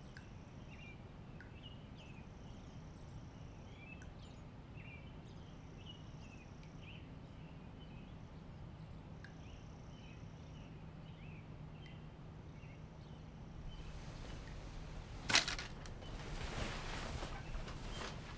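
Quiet room tone with a low hum and faint high chirps. About fifteen seconds in comes a sharp click, followed by the rustle of denim jeans being pulled down.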